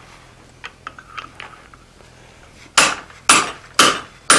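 A few light metal clinks, then a hand hammer striking a punch held in the eye of a red-hot steel hammer blank on the anvil, four sharp blows about two a second, driving the punch in to stretch the eye hole.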